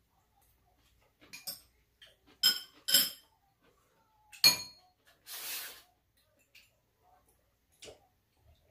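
Stainless-steel chopsticks and spoons clinking against bowls and a metal tray during a meal: sharp ringing clinks about two and a half, three and four and a half seconds in, the last the loudest. A short burst of noise follows about a second later.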